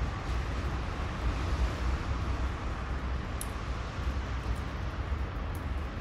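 Steady outdoor background noise with a low, uneven rumble, and no bird calling. A faint tick comes about three and a half seconds in.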